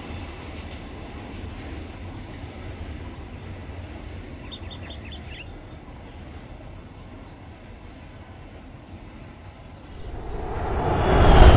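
Low rumble of a long rake of empty coal hopper wagons rolling away into the distance, over a steady insect chorus. Near the end a loud swelling whoosh rises sharply and drowns it out.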